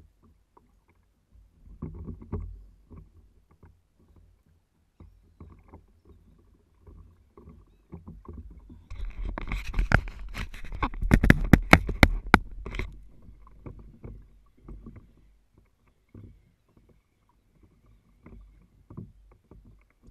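Small waves lapping and knocking against a kayak hull, with scattered soft bumps. About halfway through comes a louder stretch of rustling and handling noise with several sharp clicks as the rod and spinning reel are handled close to the microphone.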